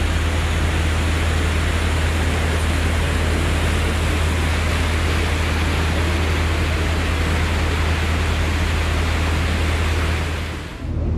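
A harbour ferry under way: a steady low engine drone under a constant rush of wind and churning wake water. The sound dips briefly just before the end.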